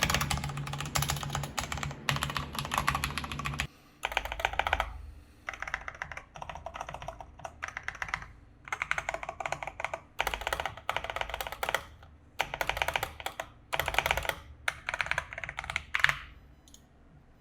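Typing on a mechanical keyboard fitted with lubed Feker Holy Panda tactile switches: quick runs of keystrokes, steady at first, then in bursts of a second or so with short pauses, stopping near the end.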